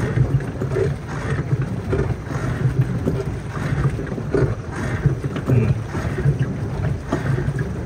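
Small boat moving across a lake: an uneven rumble of water against the hull, with wind buffeting the microphone.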